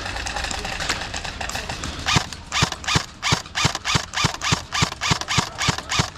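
Footsteps of someone running, a steady series of thuds about three a second starting about two seconds in.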